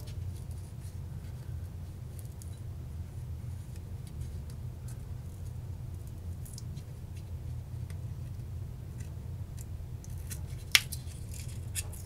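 A thin blade scraping and slitting the cardboard wrapper of 18650 lithium-ion cells in a drill battery pack, with faint scratches and ticks and a sharp click just before 11 s. A steady low hum runs underneath.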